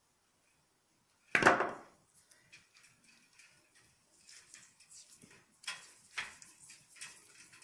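A pair of pliers set down on a wooden table with a single loud knock about a second and a half in, followed by black PVC insulating tape being peeled off its roll and wound around a twisted wire joint, in short irregular crackles.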